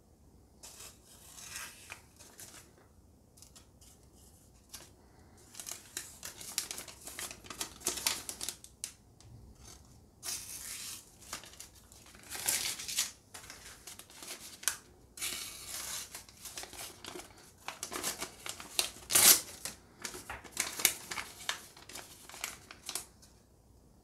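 A Japanese nakiri kitchen knife slicing through a sheet of newspaper held in the air: a series of short, crisp cutting strokes with paper crinkling between them, the loudest about nineteen seconds in. This is a paper-cutting test of an edge freshly sharpened on a stone and stropped on leather.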